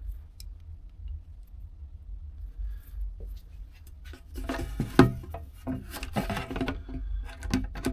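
Long needle-nose pliers and a fitting clicking and knocking against a plastic fuel tank as a seal is worked into place inside it. It is fairly quiet at first, then a busy run of clicks and knocks starts about halfway in, the loudest knock coming about five seconds in, over a steady low hum.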